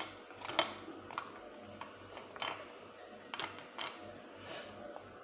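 Sticks clicking and tapping against a pan and dish while cooked sausages are picked out, about eight light, irregular clicks.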